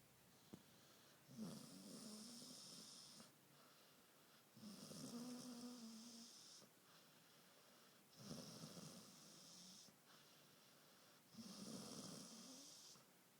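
Dog snoring softly: four long snores of about two seconds each at roughly even intervals, with quieter breaths between them.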